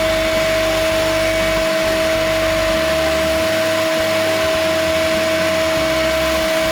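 Vacuum cleaner running steadily with a constant whine, sucking up debris after the installation.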